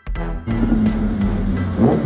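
Background music with a steady beat that comes in about half a second in, over a low steady drone.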